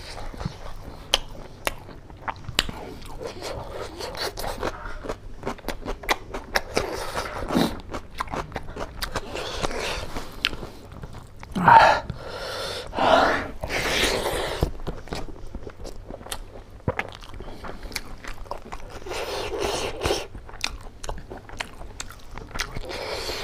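Close-up mouth sounds of a person eating pork curry and rice by hand: wet chewing, biting and lip smacks with many small clicks. There are two louder, noisier mouth sounds about halfway through.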